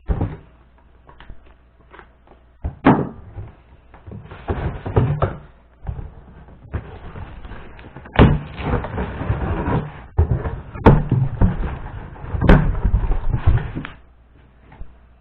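A package being opened and unpacked by hand: irregular rustling and crinkling of packaging, with several sharp knocks and thumps as the box and its contents are handled.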